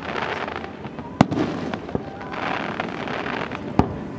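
Aerial fireworks bursting overhead: sharp bangs of exploding shells, a loud one about a second in and another near the end, with a quieter bang between them.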